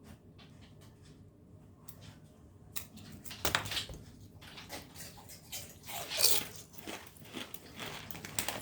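A person biting into and chewing thick kettle-cooked potato chips, loud crunching starting about three seconds in and going on in repeated crackles.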